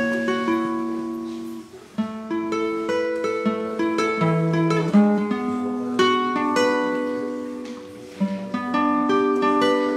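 Nylon-string classical guitar played solo, fingerpicked arpeggiated chords with notes ringing on. The notes die away briefly about two seconds in and again near the end before the next phrase starts.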